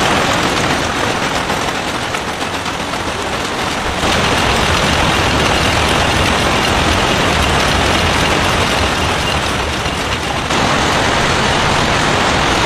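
Matchbox-making machinery running with a loud, dense, continuous clatter. The sound changes abruptly about four seconds in and again about two seconds before the end.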